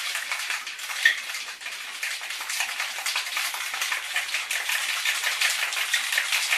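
Ice cubes rattling hard inside a metal cocktail shaker as a sour with egg white is shaken: a dense, rapid clatter, with one sharper knock about a second in.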